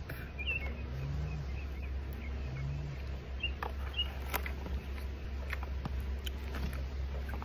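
Knife cutting into the husk of a green jelly coconut: a series of sharp chops and cuts from about halfway on, over a steady low rumble.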